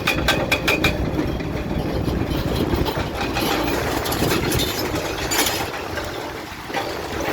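Bulldozer's diesel engine running with a steady rumble. A rapid regular clatter of about four or five strikes a second is heard in the first second, then eases, and the sound dips briefly near the end.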